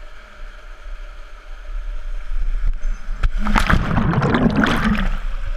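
Small waterfall rushing into a canyon pool, then a sharp splash about three seconds in as a person plunges into the pool with the camera, followed by loud, muffled underwater churning and bubbling.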